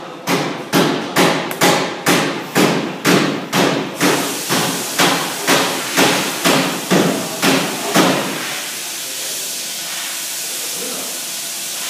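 TIG welding arc on a stainless steel exhaust pipe, pulsing about twice a second for roughly the first eight seconds, then settling into a steady hiss.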